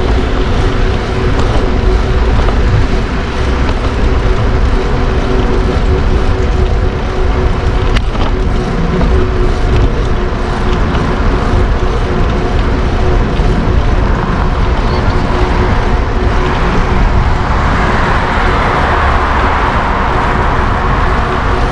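Busy city street traffic heard from a moving bicycle: a steady, loud low rumble with mixed street noise, and a swell of louder hiss from about seventeen seconds in.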